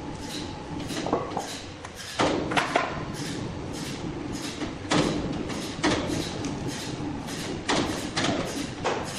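A series of irregular knocks and thuds, some louder than others, over a steady background hum.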